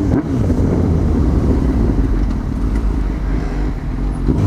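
Honda CB1000R inline-four motorcycle engine running at low speed in city traffic, mixed with a choppy rumble of wind and road noise at the microphone.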